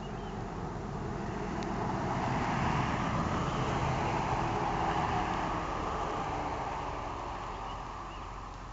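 A road vehicle driving past: its noise swells to a peak about halfway through and fades away again.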